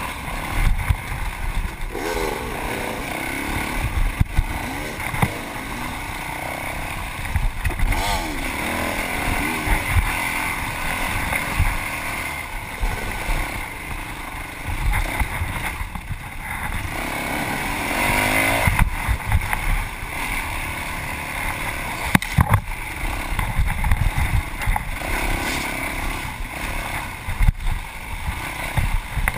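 Yamaha WR450F's single-cylinder four-stroke engine under race riding, revving up and dropping back again and again as the rider works the throttle and gears. There is a constant low rumble throughout and a few sharp knocks in the second half.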